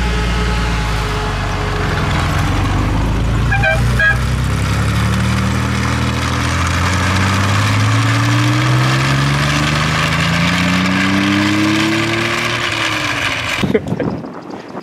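Ferrari Dino 246 GT's V6 engine running steadily, then revving up in one long, even rise in pitch as the car pulls away, easing off just before it cuts off near the end. A brief clack about four seconds in.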